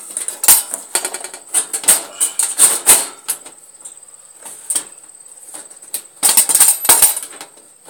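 Metal clanking and rattling of a galvanized cage trap being handled and set right next to the microphone, in several bursts of quick clicks with short pauses between.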